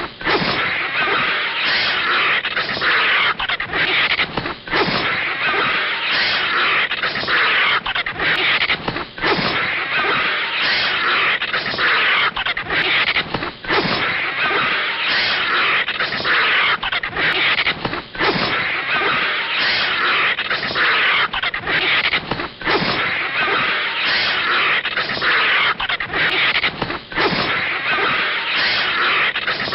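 Cartoon animal-fight sound effects for a vulture clawing at a snake: a harsh, rasping animal noise that runs on almost unbroken, with brief gaps here and there.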